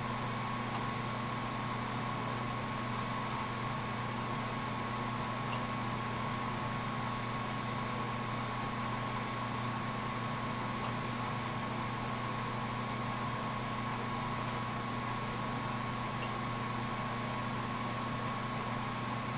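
Steady hiss of a glassworking torch flame over a constant hum, with a faint tick about every five seconds.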